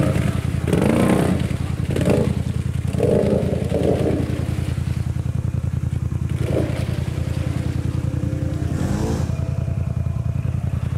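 ATV engine running steadily at an even pitch, with no revving.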